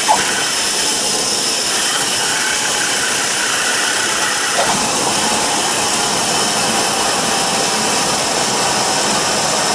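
Cessna 172's piston engine turning over at idle, heard inside the cockpit as the plane rolls out along the runway after landing: a steady drone with a broad rushing noise. Two brief squeaks, one right at the start and one about halfway through.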